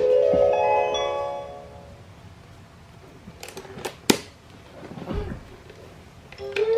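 Electronic toy chime: a chord of tones set off by a button press, fading away over about two seconds. A few sharp plastic clicks and a dull thud follow from handling the toy, and electronic toy music starts near the end.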